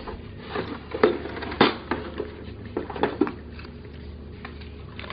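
Paper play-money banknotes rustling and crinkling as they are handled, in several short, sudden bursts about a second apart.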